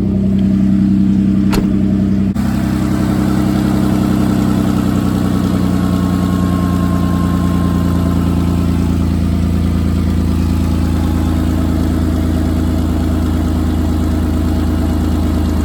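Ford Contour engine idling steadily, running on a newly fitted fuel pump. A single sharp click about a second and a half in.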